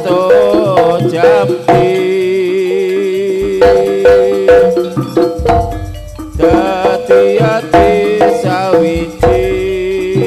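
Live Jaranan gamelan music: a wavering, bending melody line over struck percussion, with deep low strokes about halfway through and again near the end.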